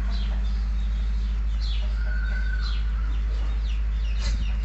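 Chickens with chicks cheeping: short, high, falling peeps repeated irregularly, over a steady low hum.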